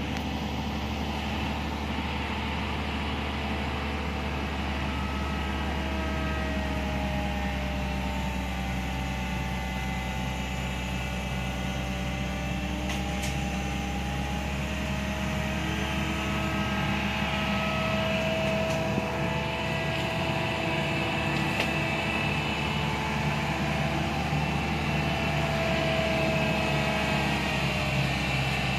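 Hitachi hydraulic excavator's diesel engine running steadily, with whining tones from the working hydraulics that rise and fall as the arm moves; it gets a little louder about halfway through.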